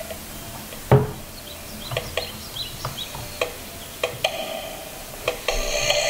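Short electronic beeps and chirps from a Radiomaster TX16S transmitter's built-in speaker as its volume knob is turned, growing louder and denser near the end. A single sharp knock about a second in.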